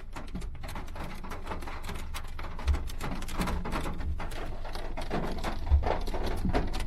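Rain pattering: a dense run of small drop clicks, with a few low thumps.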